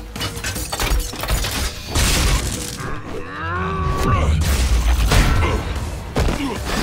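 Animated fight sound effects: a high-tech bo staff's mechanical transforming clanks and whirs, repeated impacts with a shatter, over a heavy rumbling score. A sliding, drawn-out cry comes about three seconds in.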